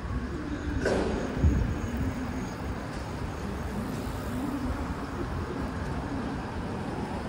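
Busy city street ambience: a steady wash of traffic noise, with a brief sharper noise about a second in.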